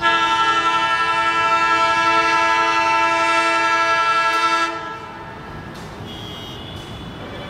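Alco diesel locomotive's horn sounding one long, steady multi-tone blast of nearly five seconds, which cuts off. After that the approaching locomotives' running noise carries on, much quieter.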